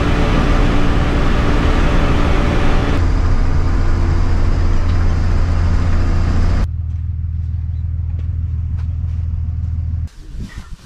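Step van's engine and road noise heard from inside the cab while driving, a steady low drone. It changes abruptly about three seconds in, drops in level about seven seconds in, and falls to a quiet background near the end.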